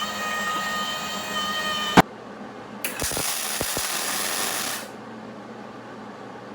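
MIG welder's wire-feed motor running with a steady whine for about two seconds, feeding wire off the spool, and stopping with a sharp click. About a second later comes a hiss of roughly two seconds with a few low clicks in it.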